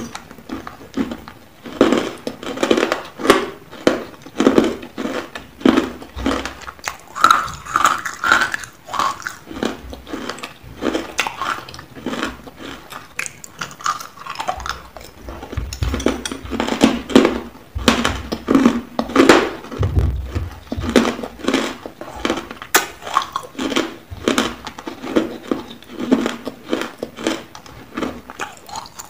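Close-up crunching of ice chunks being bitten and chewed, a rapid, irregular run of sharp crunches.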